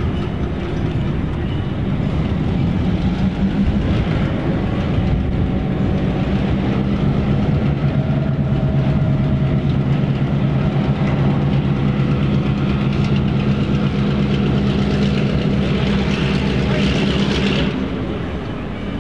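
Diesel locomotive engine running with a steady low hum while the train moves, heard from aboard. A rushing hiss builds over the last few seconds, then the engine sound drops off suddenly near the end.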